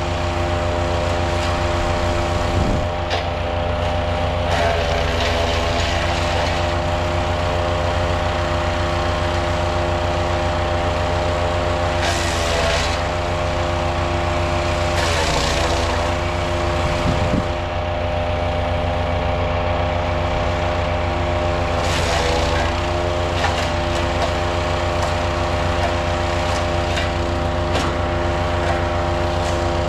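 Powerfist 420cc wood chipper running steadily while brush is fed through it. Several times the engine pitch dips briefly under load, each time with a burst of crunching and splintering as branches are chipped.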